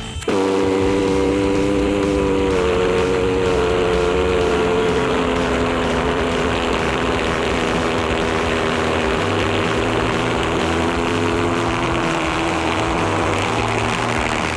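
Maddox Jets Hurricane 100-pound-thrust valved pulsejet running on gasoline: it starts suddenly, about a quarter second in, and runs loud and steady, with a few shifts in pitch.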